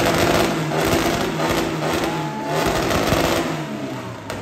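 1967 Volkswagen Beetle's air-cooled flat-four engine, fitted with a new MSD ignition, running loudly at high revs with its engine lid open. It eases off near the end.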